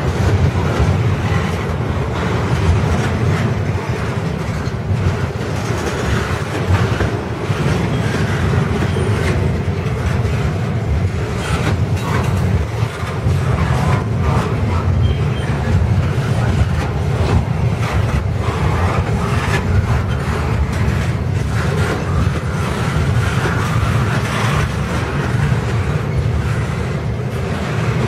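Double-stack intermodal well cars rolling past: steel wheels on the rails make a steady heavy rumble with irregular clacks.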